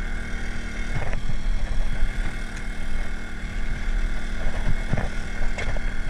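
A small engine on the bowfishing boat running steadily with an even drone, with a couple of knocks from gear being handled, about a second in and again near five seconds.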